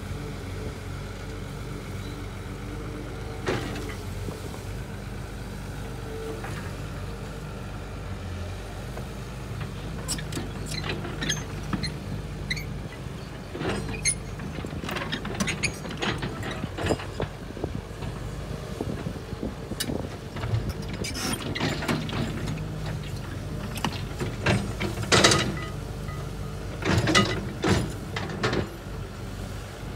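Cat 320C hydraulic excavator's diesel engine running steadily while the bucket digs into a mound of dirt and rock, with knocks and clatter of the bucket against soil and stones. The clatter grows busier about a third of the way in, with the loudest clanks near the end as the bucket strikes the ground.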